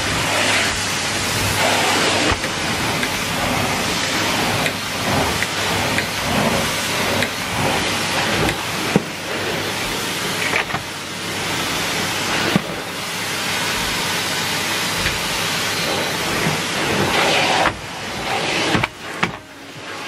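Numatic Henry cylinder vacuum cleaner running, its floor tool pushed over carpet: a steady rushing suction noise with a low hum underneath, dipping and turning uneven near the end.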